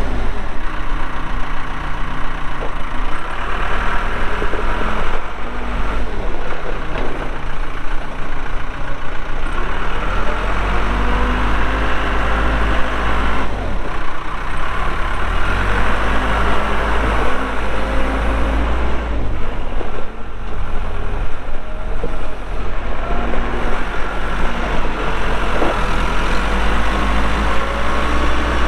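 Case 580L backhoe's Cummins diesel engine running under hydraulic load as the machine is worked, its note rising and falling with the load.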